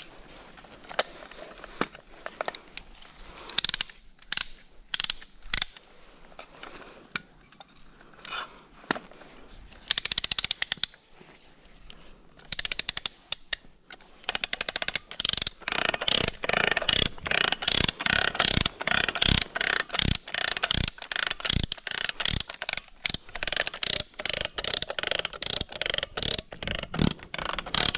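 Hand ratchet wrench clicking as it works a bolt: scattered strokes at first, then a steady run of quick clicks from about halfway through.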